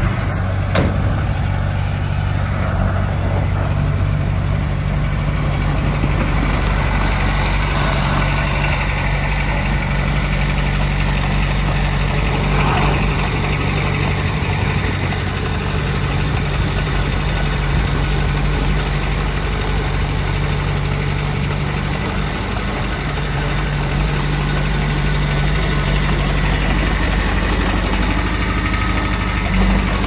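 Komatsu D20P bulldozer's diesel engine running steadily at an even speed, with a single short knock about a second in.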